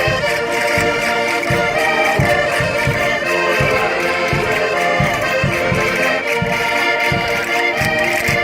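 Concertinas (Minho diatonic button accordions) playing a lively folk dance tune in chords, with a steady low bass pulse about three times a second.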